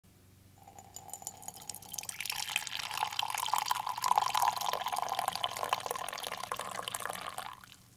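Liquid poured in a thin stream into a ceramic mug. It builds up about two seconds in, runs loudest through the middle and stops just before the end.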